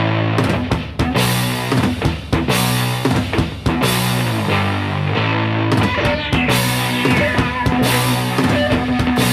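Rock backing music with a drum kit, bass and guitar, playing a steady beat.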